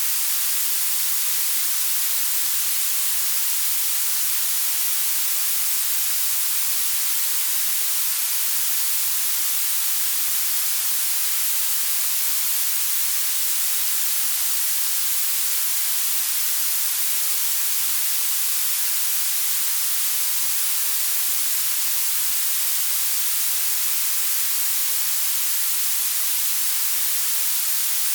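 Steady blue noise: an even, bright hiss weighted to the treble, with almost no bass and no change throughout.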